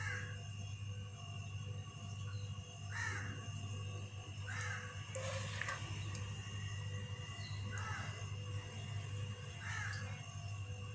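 Crows cawing, five short caws a couple of seconds apart, over a steady low hum, with a light clatter about halfway through.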